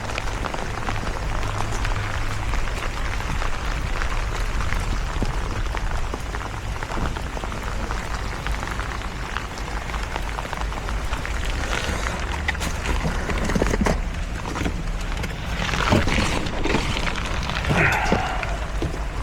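Steady, dense patter of noise with a low rumble beneath it. In the last third come a few short knocks and scrapes and a brief higher-pitched squeak.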